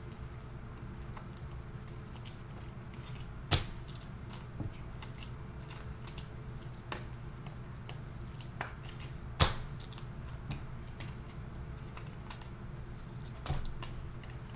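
Scattered light clicks and taps from handling things at a desk, with two sharper clacks about three and a half and nine and a half seconds in, over a steady low hum.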